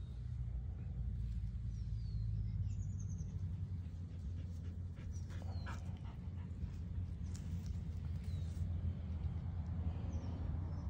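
Steady low outdoor rumble with a few short, falling bird chirps scattered through, and a few faint clicks in the middle.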